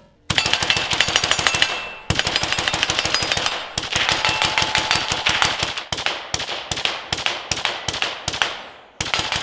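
Suppressed Rifle Dynamics RD-74, an AK-74-pattern short-barrelled rifle in 5.45×39 mm, firing fast strings of shots. Three long runs fill the first six seconds, followed by a series of shorter strings, and a new string starts just before the end.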